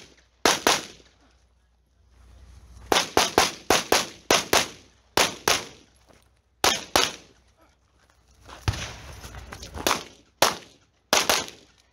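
Pistol gunshots fired in quick pairs and short rapid strings, about twenty shots in all, with pauses of up to about a second between strings.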